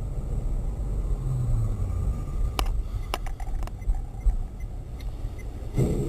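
Car engine and road noise heard from inside a moving car: a steady low rumble, with a few sharp clicks around the middle and a brief louder noise near the end.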